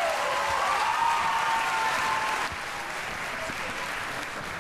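Audience applauding. It is loudest for about the first two and a half seconds, then drops to a lower, steady level.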